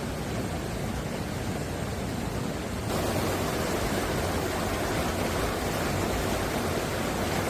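Mountain stream water rushing steadily over rocks, an even noise with no distinct splashes; it gets louder and fuller about three seconds in.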